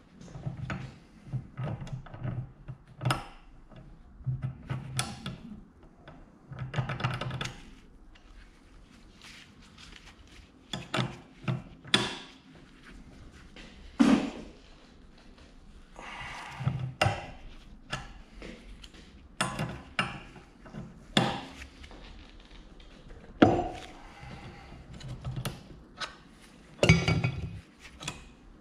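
Socket wrench and steel die parts clicking and knocking irregularly as the bolt of a homemade dimple die is worked down in a bench vise to press a dimple into a steel plate.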